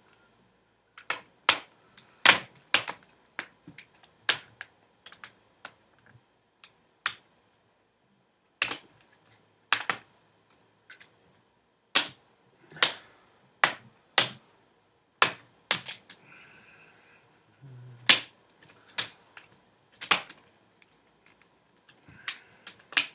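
Plastic snap clips of an HP Pavilion G7 laptop's screen bezel popping loose one after another as the bezel is pried off by hand: a run of sharp, irregular clicks, sparser for a few seconds in the middle.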